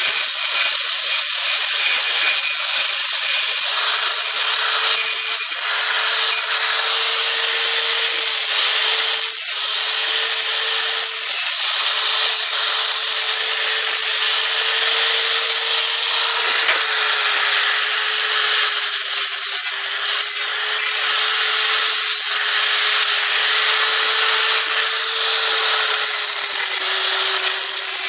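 Corded electric angle grinder with a metal-grinding disc running continuously against steel, rounding off the sharp corners of a tractor drawbar piece: a steady grinding noise over the motor's whine, its pitch sagging slightly now and then as it is pressed harder.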